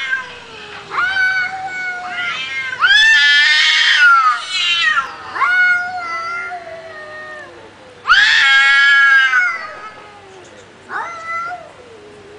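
Two cats yowling at each other in a territorial standoff, in long, wavering, drawn-out threat calls. The calls swell loudest about three seconds in and again about eight seconds in, with quieter calls between.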